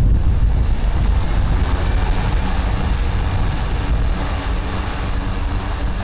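Beta Technologies ALIA CTOL electric airplane taxiing, its electric motor and pusher propeller running steadily, with heavy wind rumble on the microphone.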